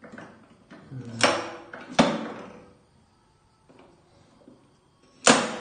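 Three sharp plastic clacks, about a second in, at two seconds and near the end, from the control knobs of a wall-mounted electric instant water heater being turned, with fainter clicks between.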